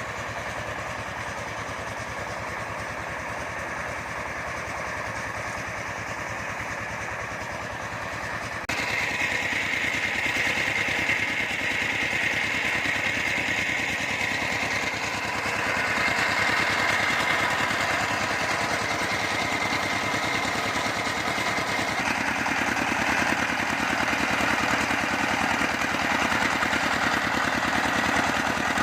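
A small engine running steadily. It steps up suddenly in loudness about nine seconds in and stays louder from then on.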